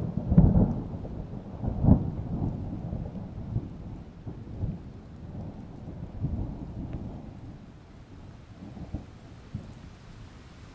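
Thunder rumbling in a series of low rolls over rain, loudest in the first two seconds and dying away toward the end.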